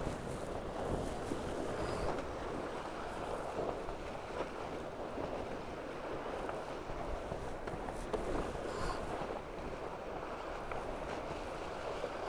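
Steady rush of water past the hulls of a Tornado racing catamaran sailing fast in the breeze, mixed with wind.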